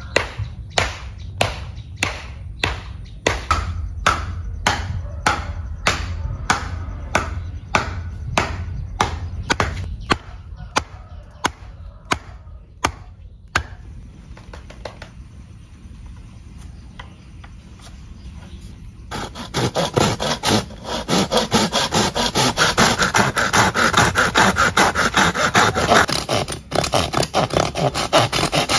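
Rhythmic blows on wood, about two strokes a second, for roughly the first half. After a short lull, a fast, steady rasping of a tool working wood starts about two-thirds of the way in.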